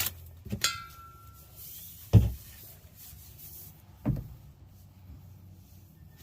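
A light clink with a brief ringing tone, then two dull thumps about two seconds apart, the first of them the loudest.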